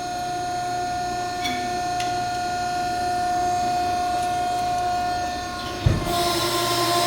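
Marathon V-6030 vertical cardboard baler's hydraulic power unit running empty through its cycle, a steady hum with a high whine, the press at the bottom of its stroke. About six seconds in there is a clunk, and the run grows louder with more hiss as the cycle moves on.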